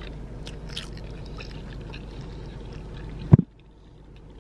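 Steady low rumble inside a car, with small scattered clicks from handling a styrofoam food box and plastic bag. About three seconds in there is a single sharp thump, after which the rumble drops away abruptly.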